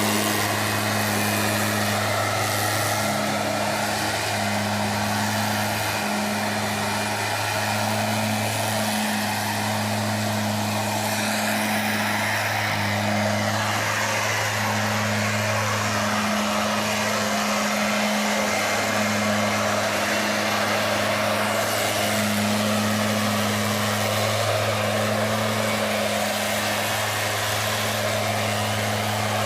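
Stihl blower-vacuum running steadily: a low engine hum under a loud rush of air.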